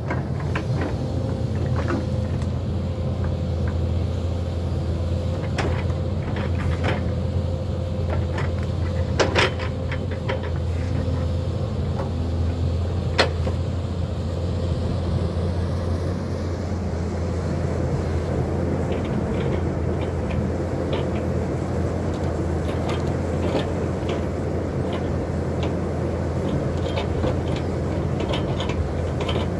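Hyundai crawler excavator's diesel engine running steadily, with a steady whine that fades out about halfway. Scattered sharp knocks and cracks run through it, the loudest about nine and thirteen seconds in.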